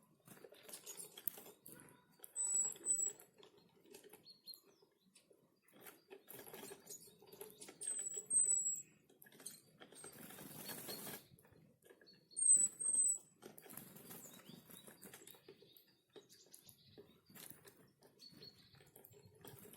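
Small forest birds at a winter feeding spot: high, thin chirps come in quick pairs three times, amid small taps, scratches and brief wing flutters, with a rustling burst about halfway.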